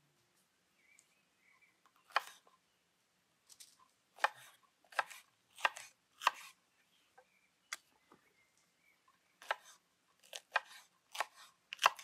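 Knife slicing long green peppers on a wooden cutting board: about a dozen separate sharp cuts at an uneven pace, each blade stroke ending on the board.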